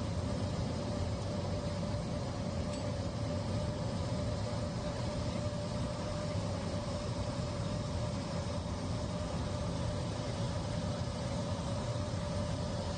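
Steady cabin noise of a jet airliner in flight, heard from inside the cabin: an even rush of engine and airflow noise with a constant mid-pitched hum running through it.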